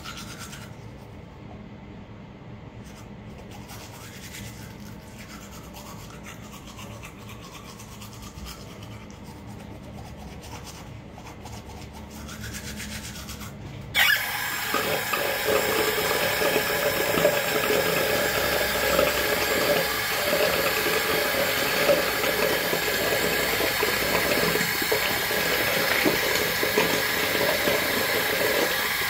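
Toothbrush scrubbing teeth, a soft rubbing; about halfway through a tap is turned on suddenly and water runs steadily and loudly into the sink.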